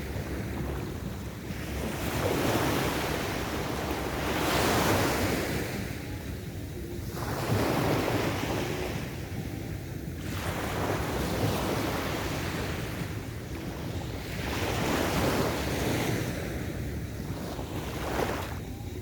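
Waves breaking and washing up a beach, one swell after another about every three seconds, over a steady low rumble.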